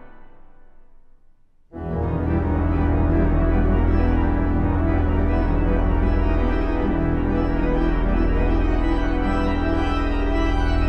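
Pipe organ: a loud chord dies away in the building's reverberation into a near-silent pause, then just under two seconds in a full chord with deep pedal bass comes in suddenly and is held steadily.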